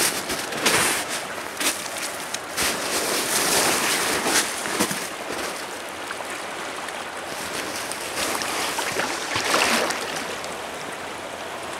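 Shallow river current rushing, with surges of splashing as someone wades through it in waders.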